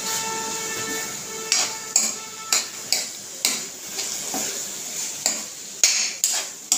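A metal spoon scrapes and knocks against a metal kadhai as a thick paste of ground dates and raisins is stirred and roasted with spices. The strokes start about a second and a half in and come at roughly two a second.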